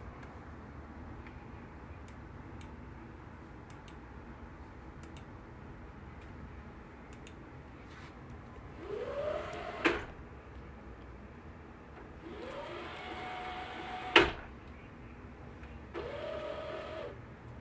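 Three short whirs of a small electric motor, each rising in pitch as it starts. The first two end in a sharp click, the second click the loudest. A steady low hum runs underneath.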